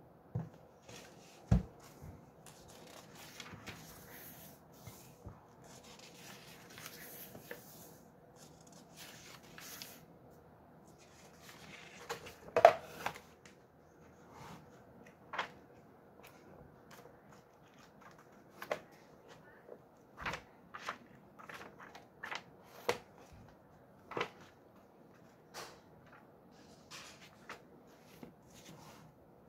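Pages of a thick hardcover book with index tabs being leafed through by hand: paper rustling and sliding, with scattered sharp taps and clicks, the loudest a little before the middle.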